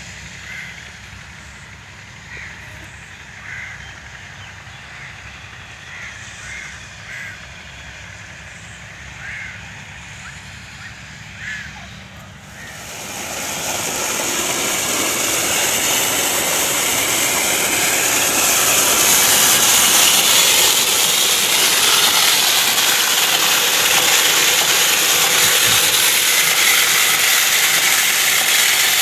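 Short bird calls over a low hum. About twelve seconds in, a solar-powered water pump in a brick well starts up: a loud, even rushing noise that builds over several seconds and then holds steady.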